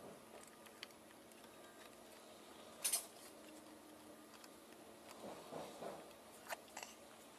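Faint, scattered clicks and taps of a test light's probe tip being touched against the fuses in a car's dash fuse panel, checking each fuse for power. There is one sharper click about three seconds in and some soft rustling a little later.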